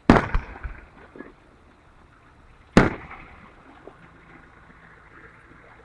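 Two aerial firework shells bursting, about three seconds apart: a sharp bang right at the start that trails off over about a second, then a second sharp bang.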